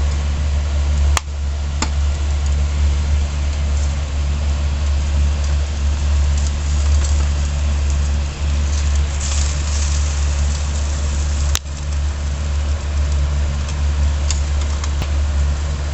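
Charcoal fire in a small fire pit crackling, with a few sharp pops and a faint sizzle, over a steady low rumble.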